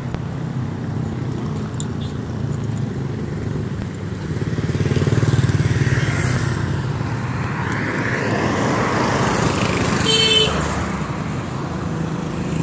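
Motorbike and scooter traffic passing on a road, engines running steadily and swelling louder as bikes come near, with one short horn toot about ten seconds in.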